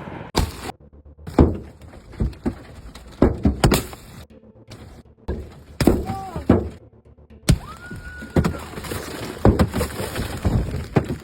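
Large hailstones striking hard surfaces: irregular heavy thuds and cracks, about a dozen of them, with a short voice or whistle in between.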